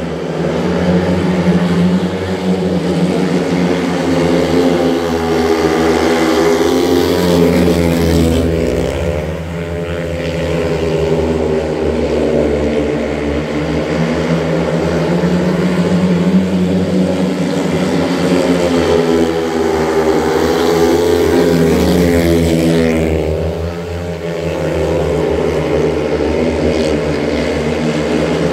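Speedway motorcycles racing, their single-cylinder methanol engines running flat out in a continuous buzz. The engine note rises and falls in pitch, and the sound dips about every fourteen seconds as the pack goes round the far side of the track.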